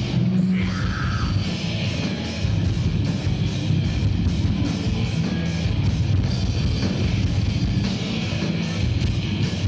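Live heavy metal band playing loud: distorted electric guitars over bass and a drum kit with steady, regular cymbal strokes.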